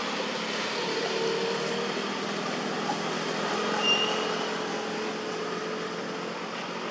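Steady outdoor background noise, an even hiss with a faint low hum, and one short high-pitched chirp just before four seconds in.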